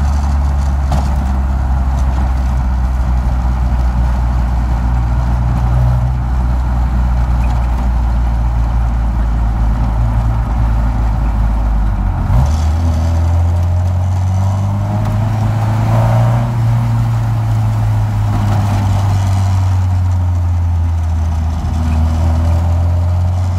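Engine of an older vehicle running at a steady cruise around 2,500 rpm, heard from inside the cab while driving. About halfway through its note changes and then climbs a little for a few seconds.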